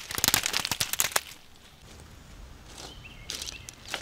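Wet seaweed being torn off rocks and bundled by hand: a dense run of crackling and tearing for about the first second, then a few lighter rustles near the end.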